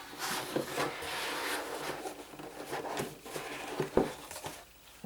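Rustling and handling of a cardboard box and its paper contents: a steady rustle for about the first two seconds, then a few light taps and knocks.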